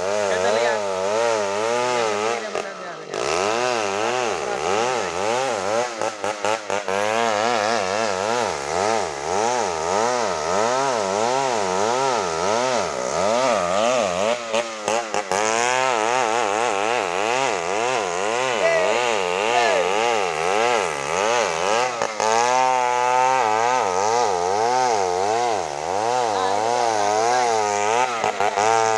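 Stihl two-stroke chainsaw cutting into hard ironwood, the engine running near full throttle with its pitch rising and falling over and over as the chain bites and frees in the cut.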